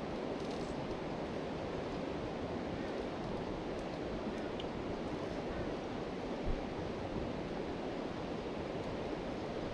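Steady rushing of flowing river water, an even wash of noise with no distinct events.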